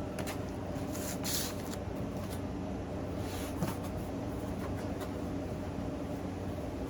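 Fireworks packaging being handled: a few short rustles of cardboard and plastic, the clearest about a second in and about three seconds in, over a steady low hum.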